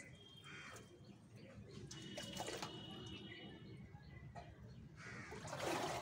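Water dripping and splashing into a plastic tub as long wet hair is wrung out over it and dunked in it, with a louder splash and run of water near the end.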